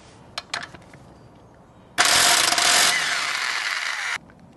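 Impact wrench loosening a wheel lug bolt: a few light knocks as the socket goes onto the bolt, then about two seconds of loud running that drops slightly partway through and cuts off suddenly.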